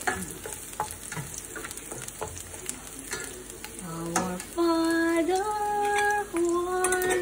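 Garlic sizzling in hot oil in a frying pan while a spatula stirs and scrapes the pan. About halfway through, a woman starts singing long held notes that step up and then back down in pitch, louder than the frying.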